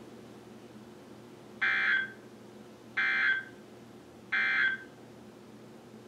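Three short bursts of Emergency Alert System end-of-message data tones from a NOAA Weather Radio broadcast, each about half a second long with a little over a second between them, marking the end of the alert message.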